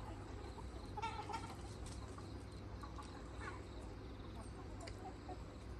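Free-range chickens, red roosters and hens, clucking; a short run of louder clucks comes about a second in and another near the middle, over a steady low rumble.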